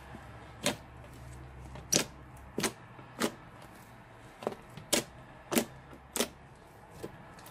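Thick slime being kneaded and pressed by hand, giving a string of sharp, separate popping clicks, about ten in seven seconds, as trapped air pockets burst.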